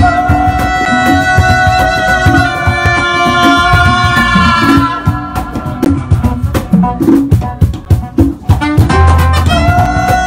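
Loud music: a long held note over drums, breaking off about five seconds in to leave mostly drums, and coming back near the end.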